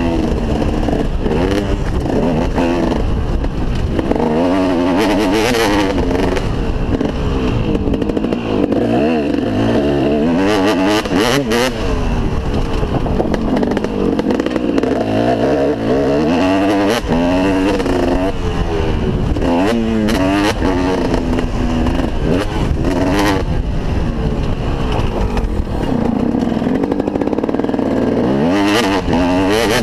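2003 KTM SX 250 single-cylinder two-stroke motocross engine, heard from a helmet-mounted camera, revving up and dropping back again and again as the rider opens and closes the throttle and shifts gear around the dirt track, with a constant low rumble underneath.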